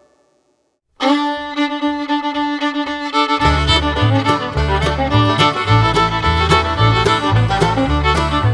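Background music: a new upbeat track with fiddle starts suddenly about a second in, and a bass line and steady beat come in a couple of seconds later.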